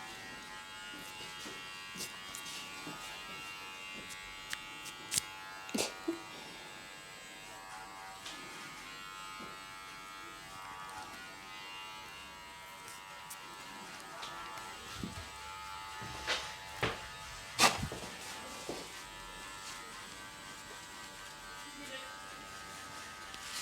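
A small electric hair trimmer buzzing steadily, with a few sharp clicks along the way, the loudest about 17 seconds in.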